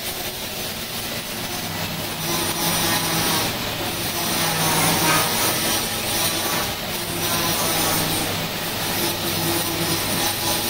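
Electric buffing machine running with its wheel against a stainless steel chafing dish: a steady motor hum under a loud, hissing rasp that swells and eases every few seconds as the piece is worked.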